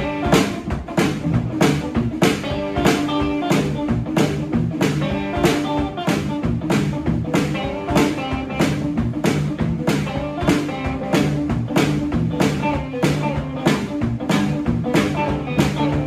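Live electric blues in the Mississippi hill country style: an electric guitar riff over a drum kit keeping a steady beat of about two hits a second.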